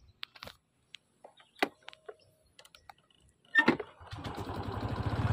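Scattered faint clicks, then a sharp knock about three and a half seconds in, followed by a vehicle engine starting up and running, growing steadily louder near the end.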